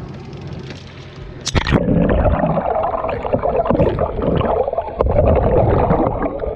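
Water washing at the surface, then a splash about one and a half seconds in as the camera goes under. After that comes muffled underwater gurgling and rumbling of water around the camera.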